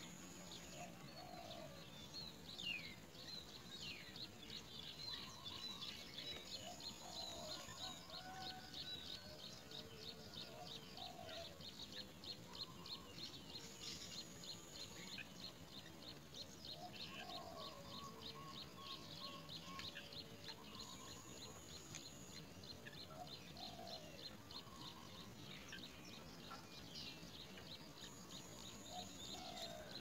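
Great myna nestlings begging in the nest, a long run of rapid, evenly repeated high chirps that goes on for most of the time as the parent feeds them. A lower bird call comes back every few seconds in the background.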